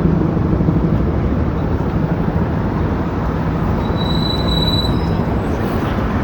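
Loud, steady city street traffic noise, with a thin high-pitched squeal lasting about a second some four seconds in.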